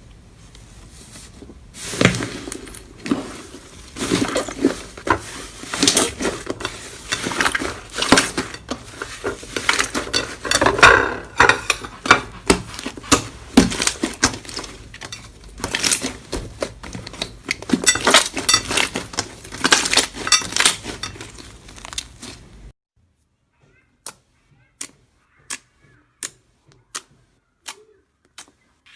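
Slime being pressed and squished by hand, giving a dense run of crackling pops and sticky clicks. About three-quarters of the way through it cuts off suddenly, followed by single sharp clicks about once a second over silence.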